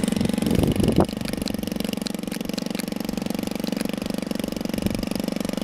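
Engine of a large-scale T-28 Trojan radio-controlled model airplane running steadily at a constant pitch as the model sits and rolls on the runway, with a couple of low thumps in the first second.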